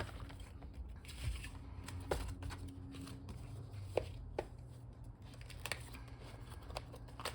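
Paper planner pages being handled and pulled off the plastic discs of a disc-bound Happy Planner: soft paper rustling with a scattering of sharp little snaps and clicks, the strongest about four seconds in.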